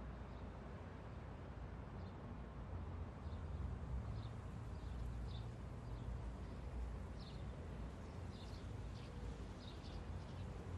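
Outdoor ambience: a steady low rumble with faint short bird chirps scattered through it.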